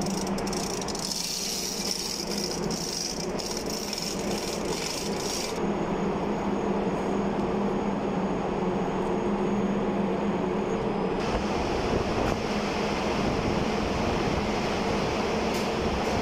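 Steady machinery drone with a constant low hum, typical of a ship's engine room with diesel engines or generators running. Its upper hiss thins out about five seconds in and comes back about halfway through.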